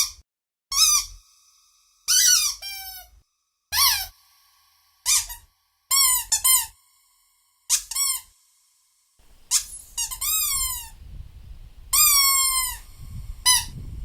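A series of short, high squeaks, each bending up and then down or sliding downward in pitch, coming in quick clusters separated by brief silences.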